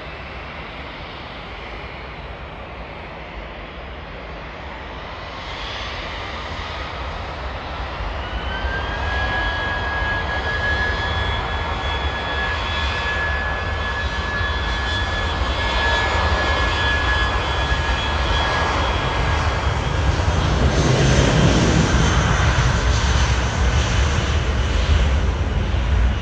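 British Airways jet airliner's engines throttling up: a whine rises in pitch, then holds steady while the sound grows louder. A deep jet rumble builds over it near the end as the aircraft rolls along the runway.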